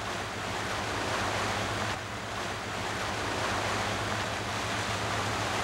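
Churning wake water rushing behind a sportfishing boat running under way, with wind on the microphone and the low, steady drone of the boat's engine underneath.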